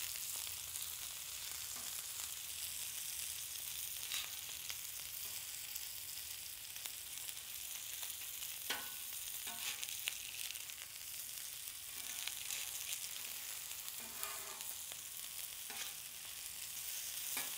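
Tuna chunks searing in avocado oil on a hot steel flat-top griddle, a steady sizzle. A few short clicks and scrapes of the metal spatula on the steel break it now and then.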